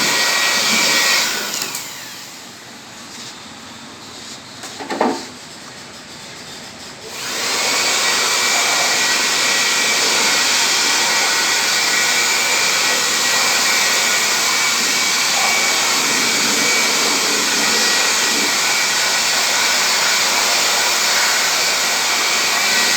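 Steady whooshing run of an electric motor-driven machine that winds down about two seconds in and starts up again about seven seconds in, running steadily from then on. A brief louder sound stands out during the lull, about five seconds in.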